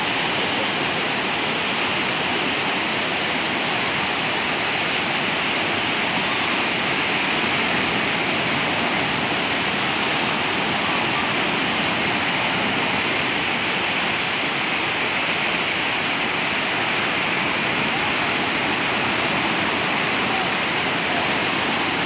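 Small sea waves washing up over a sandy beach, a steady hiss of surf with no marked swells or breaks.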